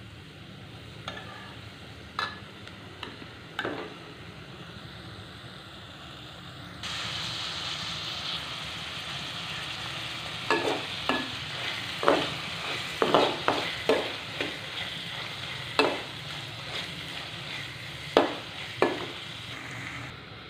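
Chopped asparagus frying in a metal karahi while a metal spoon stirs it, scraping and knocking against the pan. The sizzle gets louder about seven seconds in, and the spoon knocks come thick and fast in the second half.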